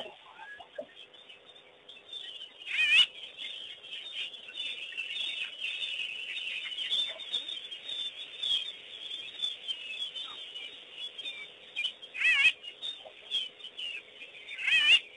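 Wild birds calling: a continual chatter of high chirps, with a loud warbling call that wavers up and down, heard about three seconds in and twice more near the end.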